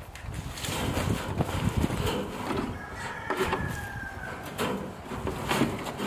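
Wire fencing rattling and scraping in repeated short jangles as it is handled and pulled into place. A thin, drawn-out call or squeak sounds in the middle.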